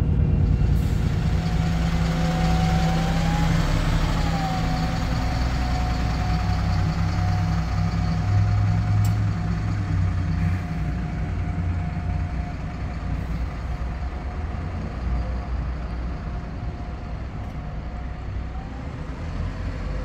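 Diesel city bus running and driving off, a low engine drone with a thin steady whine above it that bends briefly in pitch a few seconds in. The sound fades slowly as the bus pulls away.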